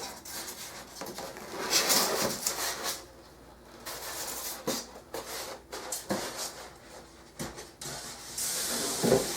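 Cardboard box of a computer case being handled for unboxing: scraping and rustling with scattered sharp knocks, and a longer hissing rustle near the end.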